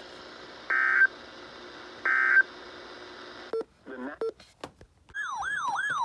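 NOAA Weather Radio SAME digital tones: two short bursts of data tones about a second apart over static hiss, the end-of-message code after a warning. The hiss cuts off about three and a half seconds in, with a few clicks, and about five seconds in a weather radio's warning alarm starts: a loud siren-like tone that falls in pitch and repeats about three times a second.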